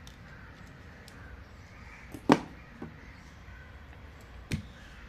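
Sharp clicks of a Victorinox 111 mm Swiss Army knife's tools being handled and snapped, three in all, the loudest a little over two seconds in.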